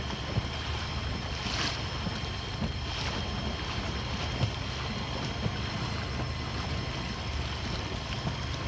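Small outboard motor of a dinghy running steadily, a constant low hum, with water washing along the hull and wind on the microphone.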